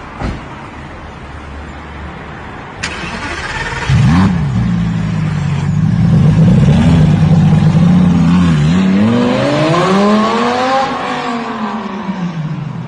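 Lamborghini Gallardo Spyder's V10 starting with a flare of revs about four seconds in, after a sharp click. It then idles, is revved up once and falls back toward idle near the end.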